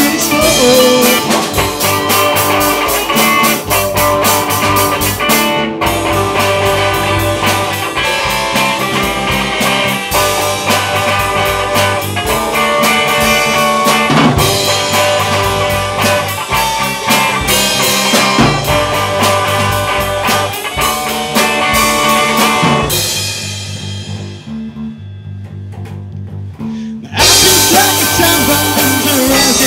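Rock band playing live: two electric guitars, bass guitar and drum kit in an instrumental passage. About 23 seconds in the drums drop out and the guitars carry on alone, more quietly, for a few seconds, then the full band crashes back in.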